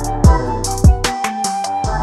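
Background music with a drum-machine beat: deep kick drums and sharp snare or hi-hat hits over held notes.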